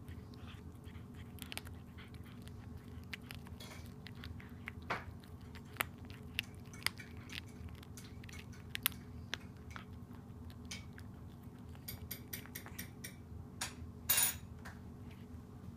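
Cat chewing and biting through a southern flying squirrel carcass: irregular sharp, wet clicks and crunches of flesh and small bones, a quick run of them near the end and the loudest crunch just before the end.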